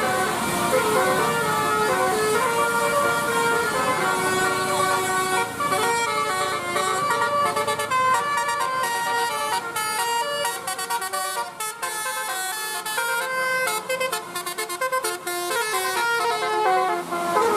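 A bus's telolet musical horn playing a tune, one note after another in quick steps up and down.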